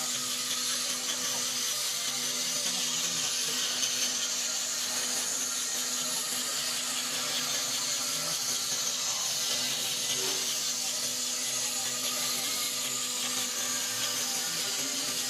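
CNC cutting machine running while cutting cardboard cat scratch boards: a steady hum with a high hiss over it.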